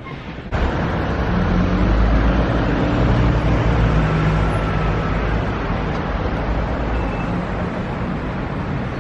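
Road traffic noise, a steady rumble of engines with a low hum, starting abruptly about half a second in.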